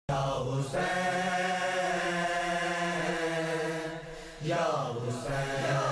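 A man's voice chanting in long held notes, two drawn-out phrases, the second starting about four and a half seconds in and fading away.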